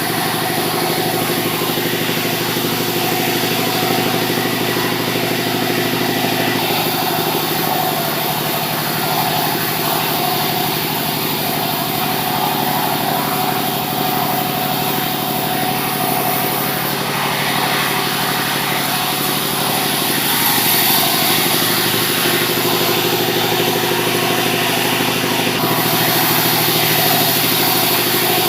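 Sawmill machinery running steadily: an engine-driven saw at work on sengon timber, its tone shifting a few times over the half minute.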